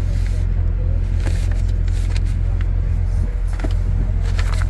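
The Corvette Stingray's 6.2-litre V8 idling with a steady low hum, heard from inside the cabin. A few light clicks of the leather owner's-manual wallet being handled sound over it.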